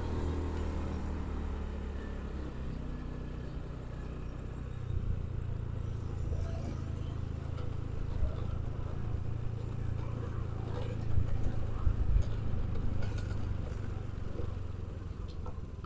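Motorcycle engine running steadily under a rider, a low hum whose pitch shifts about five seconds in as the speed changes.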